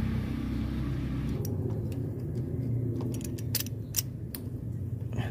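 A low steady rumble that drops away about a second and a half in, then scattered sharp metal clicks, the loudest about four seconds in, as locking pliers grip a radiator hose's spring clamp.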